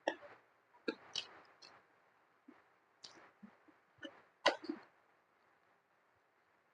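Close-miked eating sounds from chewing and sucking on spicy chicken feet: wet mouth smacks and clicks, a few in the first two seconds, one around three seconds in and a louder one about four and a half seconds in, then quiet.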